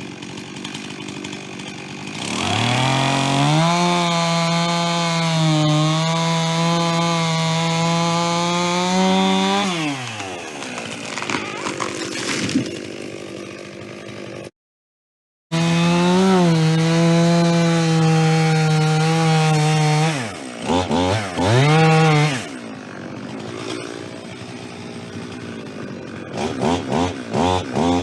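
Two-stroke chainsaw revved up and held at high revs for several seconds as it cuts wood, then falling back to idle. It runs at high revs again, then its throttle is blipped in short bursts twice, with idling in between.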